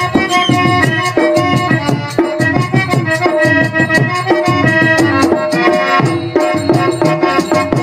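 Instrumental interlude of Tamil folk stage-drama music: tabla played in a quick steady rhythm under long held notes from a harmonium.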